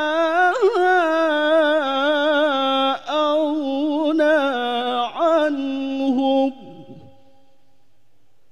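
A man's solo voice reciting the Quran in the melodic tilawah style into a microphone, holding a long, richly ornamented phrase with wavering trills. It breaks off briefly twice, then ends about six and a half seconds in, leaving faint room tone.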